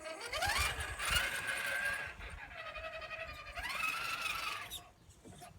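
Electric motor and gear whine of a radio-controlled rock crawler, the Axial SCX10 II, driving and climbing. The pitch rises steeply with throttle in the first second and holds, drops back, then rises again before cutting off near the end.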